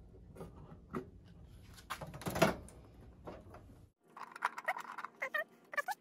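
Light clicks and knocks of a microwave turntable motor being handled and seated in its metal mounting opening, with one louder knock about two and a half seconds in. In the last two seconds, squeaky high chirping calls.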